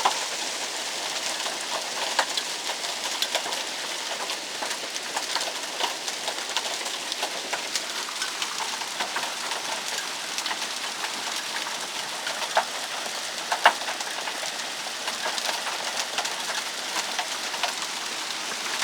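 Hail and heavy rain pelting down: a steady hiss thick with sharp ticks of hailstones striking, and two louder hits past the middle.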